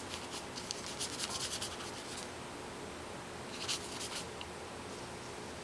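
Brush strokes of gouache on paper: a quick run of rubbing, scratchy strokes over the first two seconds, then a few more about four seconds in.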